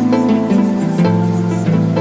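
Background music: a busy run of short notes over a held bass note that shifts to a new pitch about a second in.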